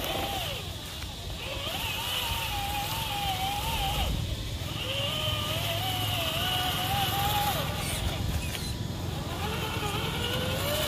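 Electric motor of a radio-controlled car whining, its pitch wavering up and down with the throttle, in runs of a few seconds with short breaks between.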